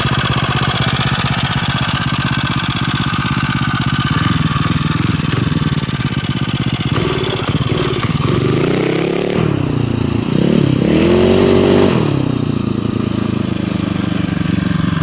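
Dirt bike's Tillotson 225 single-cylinder four-stroke racing engine idling steadily, then revving up and down several times as the bike pulls away about halfway through, before settling back to steady running.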